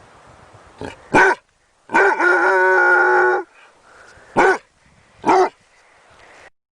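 Dog barking: two quick barks, then one long, steady, drawn-out cry of about a second and a half, then two more single barks.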